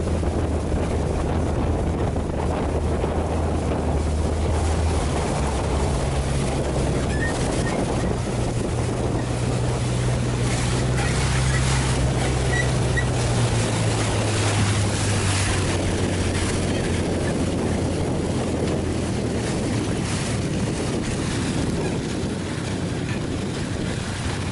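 Engine of a narrow wooden passenger riverboat running steadily under way, with water rushing along the hull and wind on the microphone. The engine note rises about five seconds in and drops back a little past the middle.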